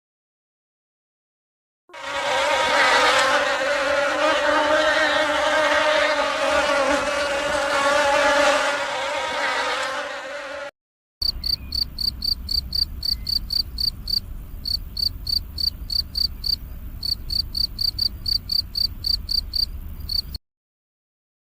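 A flying insect buzzing steadily for several seconds. After a short break, a cricket chirps in a high, even rhythm of about three chirps a second.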